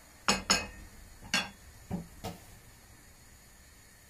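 A wooden spatula stirring prawns in a nonstick pan: about five short knocks and clinks against the pan in the first two and a half seconds.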